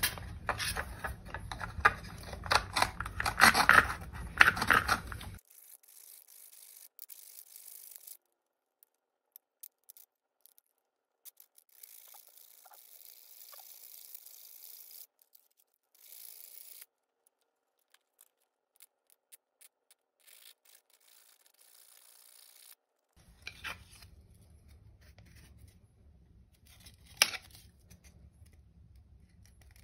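Plastic RC motorcycle fairing being cut with a bare hacksaw blade: quick rasping saw strokes that stop about five seconds in, followed by much fainter intermittent scraping. Two sharp clicks come near the end.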